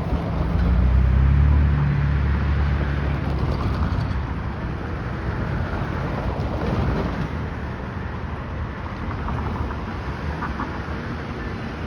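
A vehicle's deep engine rumble swells about half a second in and fades by about three seconds, over steady outdoor traffic noise.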